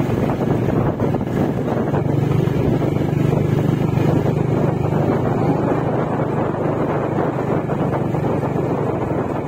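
A vehicle engine running at a steady speed while moving, with wind rushing over the microphone.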